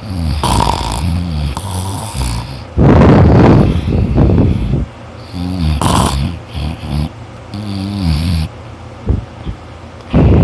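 A person snoring loudly: a run of separate snores, some with a wavering low pitch and some harsh and breathy. The loudest and harshest comes about three seconds in, and another strong one comes about six seconds in.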